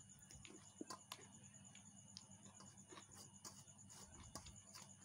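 Near silence with faint eating sounds: scattered small clicks and smacks of chewing and of fingers scooping rice on a steel plate.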